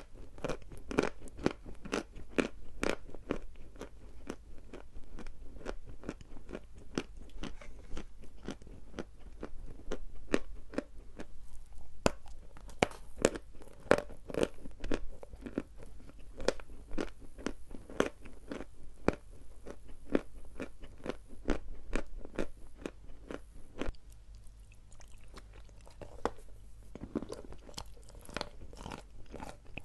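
Dry chalk being bitten and chewed close to the microphone: a rapid, continuous run of sharp, crisp crunches.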